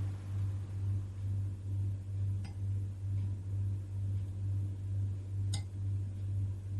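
A steady low hum, pulsing slightly in loudness, with two faint clicks about two and a half and five and a half seconds in.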